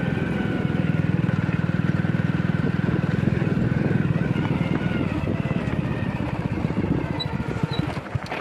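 Hero Splendor motorcycle's single-cylinder four-stroke engine running with a steady, fast pulse, getting a little quieter near the end.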